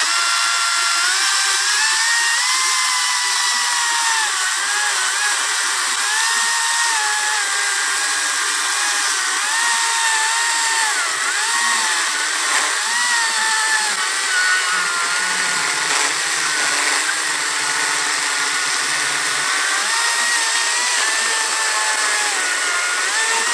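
Makita DUC353 36-volt cordless chainsaw cutting through wood, its electric motor whining continuously. The pitch wavers and dips repeatedly as the chain bogs under load. The cut goes slowly and laboriously, the saw a little short of power.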